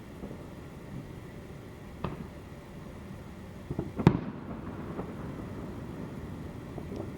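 Fireworks going off: a sharp bang about two seconds in, a quick cluster of bangs about four seconds in that is the loudest, and a faint pop near the end, over a steady low background rumble.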